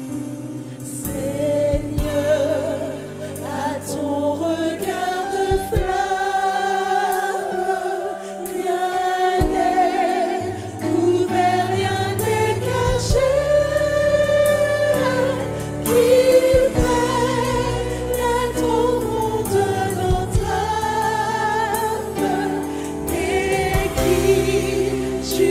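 Gospel choir singing over an instrumental backing with bass and occasional percussion.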